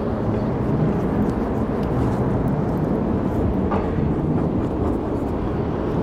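A vehicle engine running, a steady low rumble.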